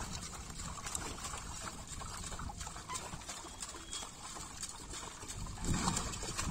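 Small pond fish flapping and splashing in a crowded seine net at the water's surface, an irregular patter of little splashes and flicks over water lapping around the men. The water noise grows louder near the end.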